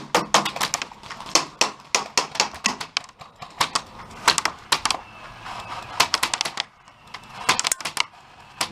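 Airsoft gunfire: rapid, irregular sharp clicks and snaps of airsoft guns firing, some coming in quick bursts.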